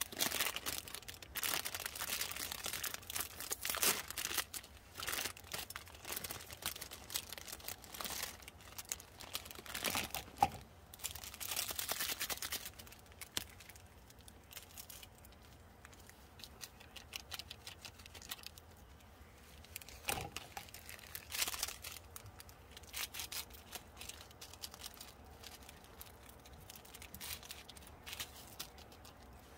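Crinkling and tearing of a plastic instant ramen packet for about the first dozen seconds. After that it goes quieter, with a low steady hiss from the pan of water boiling on the portable gas stove and a few short bursts of crinkling later on.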